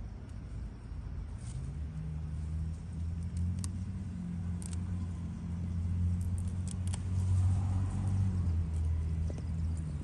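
A low motor rumble builds over a few seconds, is strongest past the middle and eases off near the end, with scattered light snaps and rustles as cilantro stems are picked by hand.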